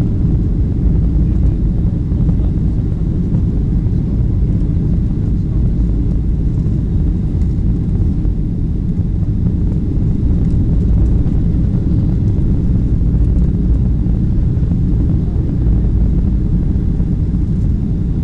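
Steady low rumble of engine and airflow noise inside the cabin of a Boeing 737-700 airliner in flight.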